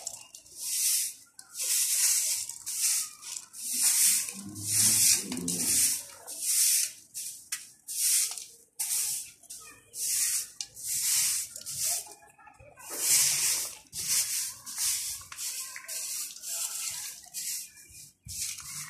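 Long grass broom swept across stone floor tiles: a run of short, hissing swishes, about one to two strokes a second, with a couple of brief pauses.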